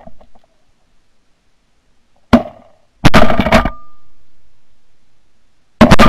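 Shotguns firing at a goose passing overhead: one short, sharp report about two seconds in, then two loud blasts about a second and three seconds later, each dying away over a couple of seconds.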